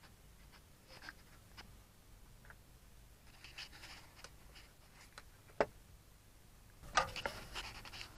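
Faint clicks and rubbing of hands handling and fitting a switch cover plate against a compartment wall, with one sharp click a little past the middle and a short spell of busier clicking and scraping near the end.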